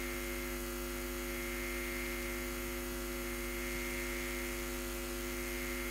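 Steady electrical mains hum and buzz, a fixed stack of tones that does not change.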